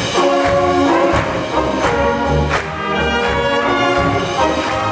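German brass band playing a polka live, tubas and trumpets with other brass over a steady beat.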